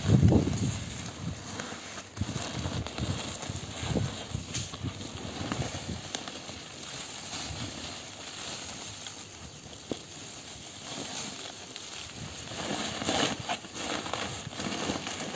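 Sawdust poured out of a woven plastic sack into a heap: a soft, uneven hiss of falling grains with crinkling and rustling of the sack. A louder thud comes right at the start.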